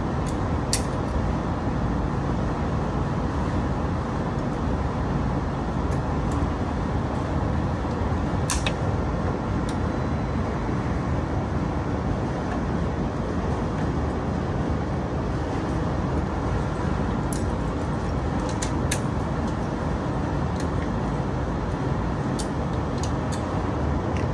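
Steady low rumble of background noise with a few short, sharp clicks and taps scattered through it. The clearest tap comes about eight seconds in.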